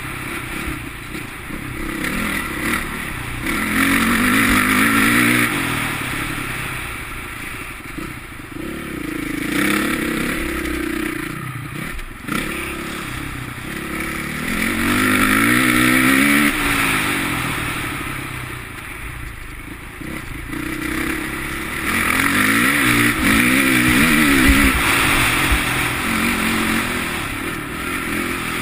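Honda CRF450 dirt bike's four-stroke single-cylinder engine, heard on board, revving hard and backing off again and again as it is ridden round a motocross track. It swells louder four times, about four, ten, fifteen and twenty-four seconds in.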